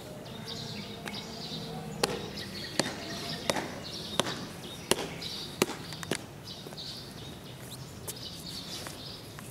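Footsteps of shoes striking pavement in a marching pace: about seven sharp steps a little under a second apart, starting about two seconds in and stopping past the middle.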